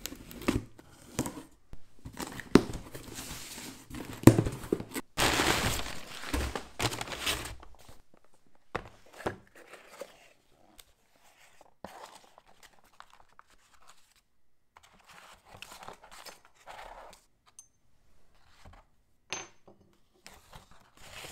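A knife slits the packing tape on a cardboard shipping box and the box is torn open, with one long, loud tearing rip about five seconds in. After that come quieter sounds of a smaller cardboard box being opened and wrapping paper rustling, with scattered light knocks.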